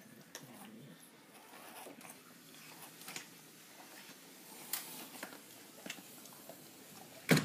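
Feral cats crunching dry kibble from bowls: scattered small crunches and clicks. One loud knock near the end.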